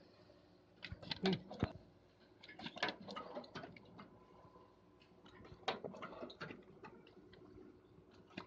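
Paper dona making machine running, its pressing dies clicking and knocking in irregular clusters over a faint steady hum.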